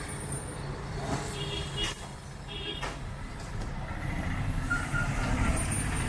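Low, steady rumble of idling motor vehicles, growing louder over the last two seconds as an autorickshaw drives up close.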